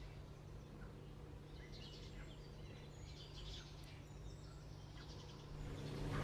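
Quiet room tone with a steady low hum and faint, scattered bird chirps.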